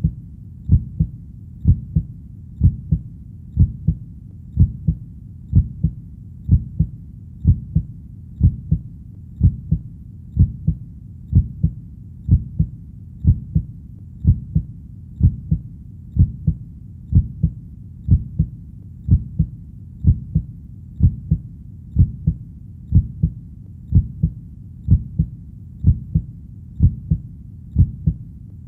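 Heartbeat: steady paired beats, lub-dub, about one pair a second, deep and low in pitch, over a faint low background rumble.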